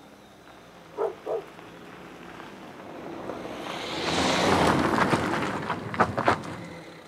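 A car drives up and pulls to a stop: its tyre and engine noise swell to a peak and then fade as it brakes, with a few sharp clicks near the end.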